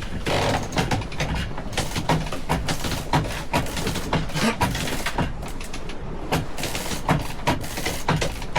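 Wind buffeting the microphone on a boat under sail: a steady low rumble broken by many rapid, irregular cracks and slaps.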